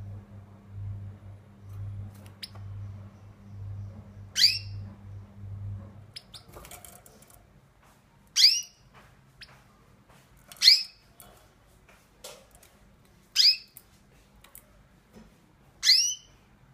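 A caged finch giving short, sharp call notes, each falling in pitch: five loud ones spaced a few seconds apart, with fainter notes between them. A low steady hum runs under the first six seconds, then stops.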